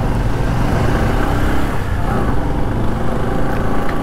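Motorcycle engine running steadily as the bike is ridden, heard from the rider's own bike.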